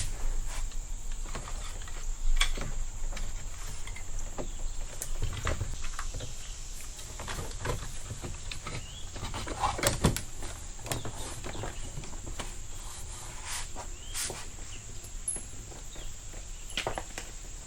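Scattered small knocks and clicks of hand work on a car door while a replacement door handle is being fitted, a few louder knocks among them.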